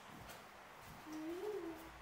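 A brief wordless vocal sound, rising and then falling in pitch, about a second in, preceded by a few faint taps.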